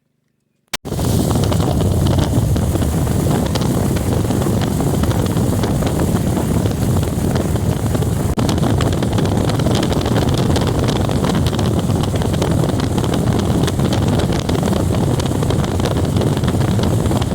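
Loud steady rushing noise with no clear pitch, starting abruptly about a second in.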